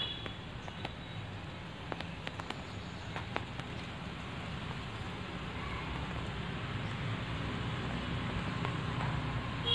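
Steady background noise with a low hum, broken by a handful of faint clicks in the first few seconds.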